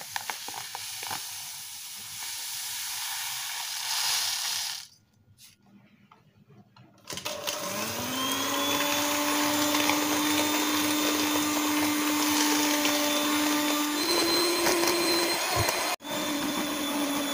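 Handheld electric mixer beating egg whites and sugar at high speed in a stainless steel bowl. A steady hiss stops about five seconds in. After a short pause the motor spins up with a rising whine and runs at a steady pitch, which steps higher a few seconds before the end and breaks off briefly near the end.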